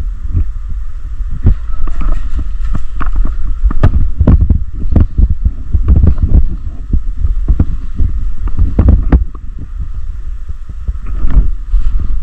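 Loud rumble and wind buffeting on a body-worn action camera's microphone, with many irregular knocks and thumps.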